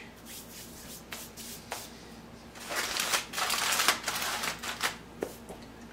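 Aluminum foil crinkling as it is crumpled and pressed into shape by hand: a few scattered crackles, then a denser stretch of crinkling lasting about two seconds from around the middle.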